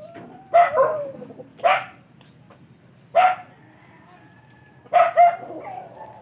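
A dog barking: about six short barks spread irregularly, some in quick pairs.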